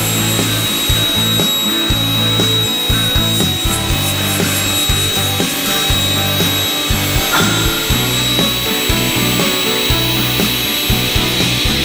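NC24L automatic circular sawing machine running and cutting profiles, with a steady high whine throughout and scattered clicks.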